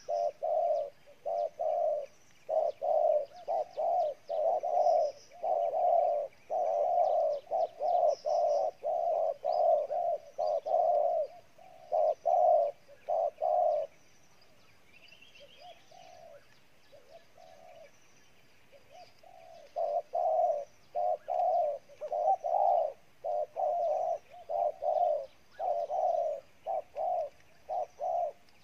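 Spotted dove giving its rapid, excited cooing: a fast run of short low coos, repeated several times a second. About halfway through it stops for some five seconds, then starts again just as hard. Faint high chirps of small birds sound behind it.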